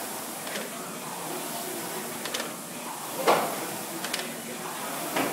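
Concept2 air rowing machine in use: its fan flywheel whooshes with each stroke, roughly every two seconds, over steady background noise, with a sharper knock a little over three seconds in.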